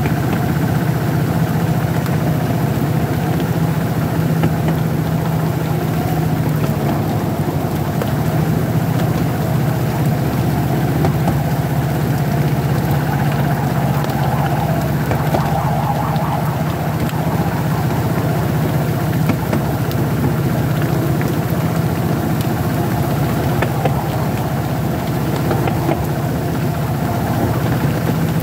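Diesel-hydraulic miniature railway locomotive's engine running steadily under way, a constant low drone, with the noise of the train's wheels running on the rails.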